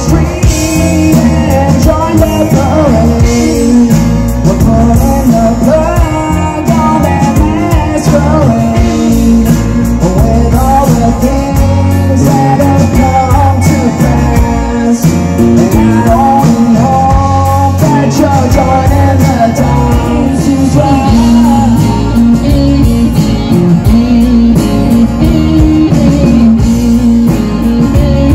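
Live rock band playing through a PA: a man singing over strummed acoustic guitar, electric guitar, bass guitar and a drum kit, loud and without a break.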